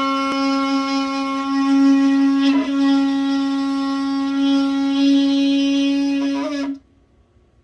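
Shofar blown in one long, steady blast, with a brief crack in the tone about two and a half seconds in, then cutting off abruptly near the end.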